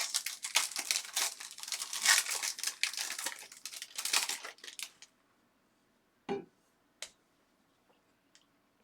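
Foil trading-card pack wrapper crinkling as it is torn open and handled, a dense crackle for about five seconds, followed by a few light separate clicks as cards are handled.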